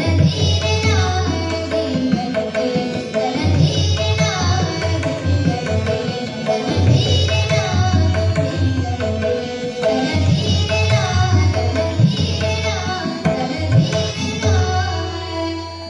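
A girl singing a Hindustani classical vocal, her voice sliding and ornamenting over a tanpura drone and harmonium, with tabla accompaniment whose deep bass strokes run under it.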